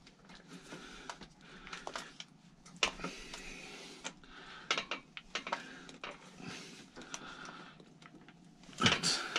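Scattered small clicks and taps of a pannier rack's bolts and fittings being handled and loosened on a bike frame, with a louder knock and rattle near the end.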